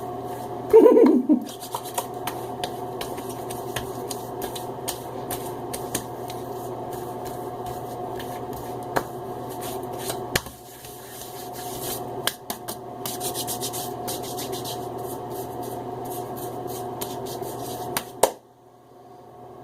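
Hands rubbing Aqua Velva Ice Blue aftershave over a freshly shaved head and face, with scattered light taps, over a steady hum that stops shortly before the end.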